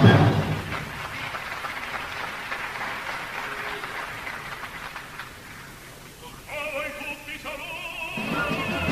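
Opera-house audience applauding after the closing chord of a chorus and orchestra number, the clapping slowly dying away. About six and a half seconds in, a singing voice with vibrato and the orchestra come back in over the last of it.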